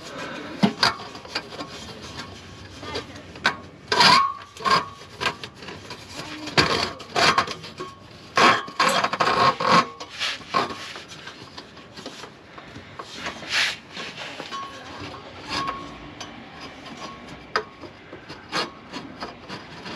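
Irregular rubbing and scraping with occasional knocks as a diesel heater's heat-wrapped exhaust pipe is handled and fitted up against a van's underbody.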